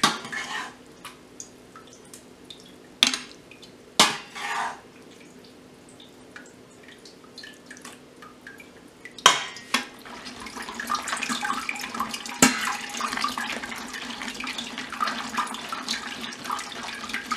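Stainless steel hand-cranked food mill working tomato pulp: a metal ladle clinks sharply against the mill bowl several times in the first ten seconds as wet pulp is tipped in, then from about ten seconds in the crank is turned steadily, the blade scraping and squelching the seeds and peels through the strainer plate. A steady low hum runs underneath.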